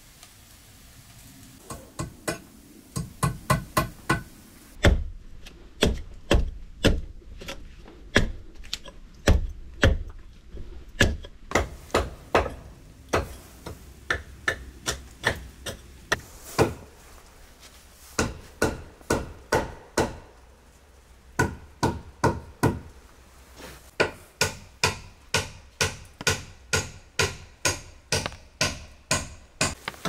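Hammer striking wood in runs of quick, sharp blows, about three a second, with short pauses between runs; the heaviest, deepest blows come in the first third.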